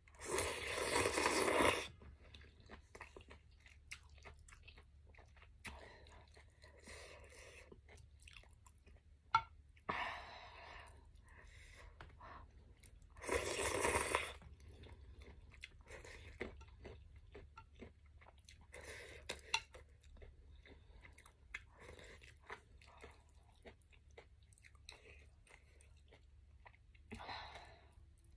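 A person eating Liuzhou snail rice noodles: a long loud slurp of noodles at the start and another loud slurp about halfway through as broth is sipped from a spoon, with quiet chewing and wet mouth clicks in between.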